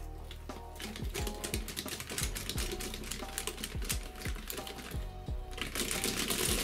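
Background music with a steady beat, over a fast irregular clatter of cast metal track links on the scale T-150 crawler tractor's undercarriage as it is rolled by hand; the clatter thickens about two-thirds of the way in.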